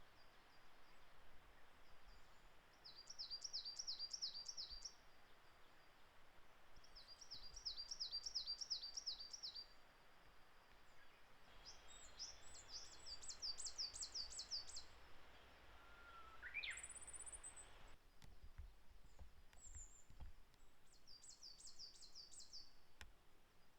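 Coal tit singing: bouts of a high two-note phrase repeated rapidly, four bouts with pauses between them. Near the middle come a single rising whistle and a brief very high trill.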